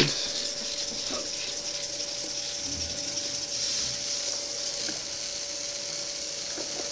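Small wheeled robot's drive servo motors whirring steadily as it drives itself through the maze, a constant mid-pitched hum over a faint hiss.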